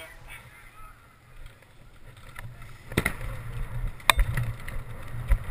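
Low outdoor rumble on a body-worn camera's microphone, with two sharp clicks about a second apart past the middle.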